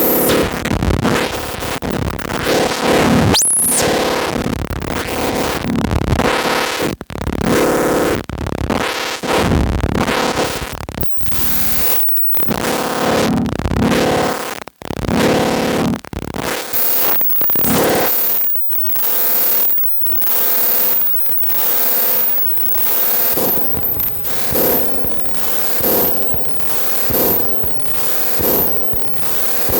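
Noisy electronic synthesizer music: harsh, gritty tones chopped into stuttering chunks, settling after about halfway into an even pulse of roughly one hit a second.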